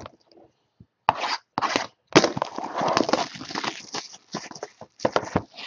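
Cardboard trading-card hobby boxes being handled and slid on a table: a few short scrapes and knocks, then a longer scraping rustle starting about two seconds in, and another short scrape near the end.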